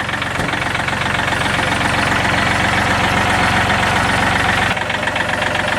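Tractor engine idling steadily with an even, rapid firing rhythm; the tone shifts slightly near the end.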